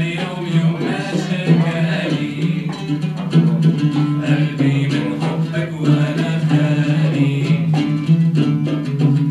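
Live Arabic song: oud plucking a repeating low figure with violin, and voices singing over it.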